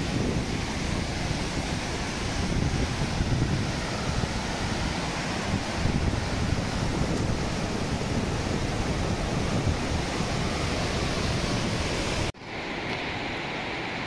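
Whitewater of a boulder-strewn mountain river rushing steadily, with gusts of wind buffeting the microphone. About 12 seconds in the sound cuts off abruptly and comes back as quieter, smoother water noise.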